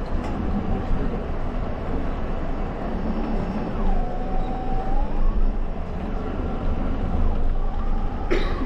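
Steady low rumble of a remote-controlled mouse droid's drive motors and wheels rolling over carpet, heard from a camera mounted on the droid. About four seconds in a brief tone dips and holds for about a second, and near the end there is one sharp click.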